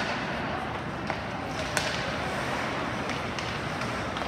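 Ice hockey game play: a steady hiss of skates on the ice, broken by several sharp clacks of sticks and puck, the loudest a little under two seconds in.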